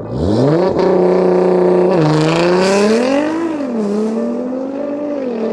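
Nissan R35 GT-R's twin-turbo VR38DETT V6 through a full titanium Tomei Expreme Ti exhaust, launching and accelerating hard away. The revs climb steeply at first, then fall back briefly at each of a few quick upshifts, and the sound grows fainter as the car pulls into the distance.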